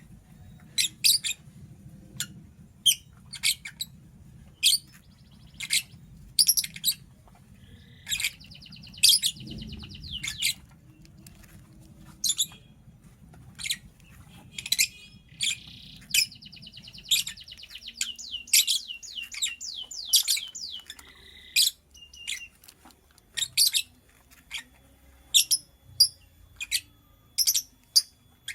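Lovebird chirping: short, sharp, high chirps about once a second, broken twice by longer, rapid chattering trills.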